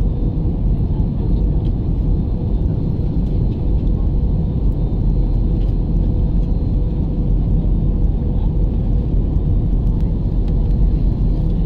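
Cabin noise of a jet airliner on approach to landing: the engines and rushing air make a steady low rumble inside the passenger cabin, with a thin steady tone over it.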